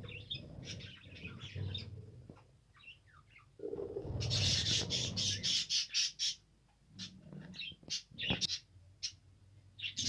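A flock of budgerigars chattering, many short chirps and squawks overlapping, busiest and loudest about four to six seconds in.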